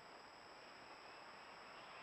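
Near silence: the faint, steady hiss of a trail camera's recording, with a thin, unbroken high tone.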